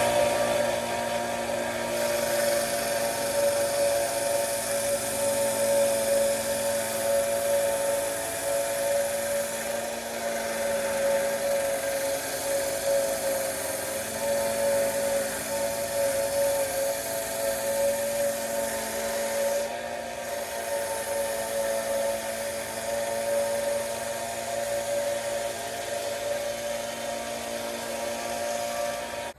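High-speed handheld rotary tool running steadily with a high whine as it grinds and shapes a Micarta knife scale.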